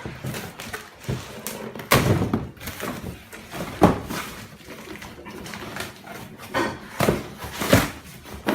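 A few sharp knocks and thuds, about four, in a small room.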